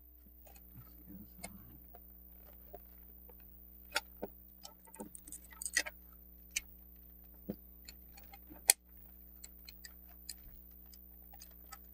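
Hard plastic parts of an Armatron toy robot arm clicking and knocking as the wrist and gripper assembly is handled and pushed onto its rubber boot. The clicks are scattered and irregular, thickest in the middle of the stretch, with the sharpest knock about three-quarters of the way through.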